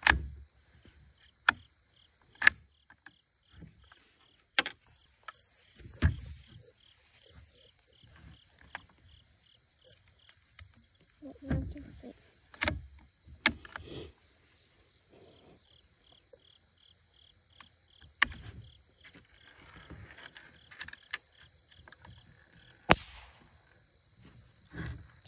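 The bolt of a youth bolt-action rifle being worked by hand: sharp metallic clicks and clacks at irregular intervals, with soft handling knocks. Insects chirr steadily in the background.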